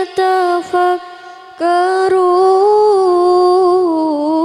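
A single voice in melodic Qur'an recitation (tilawah), drawing out a long ornamented note. It breaks off briefly just after the start and resumes about a second and a half in, held with a slow waver and stepping down in pitch near the end.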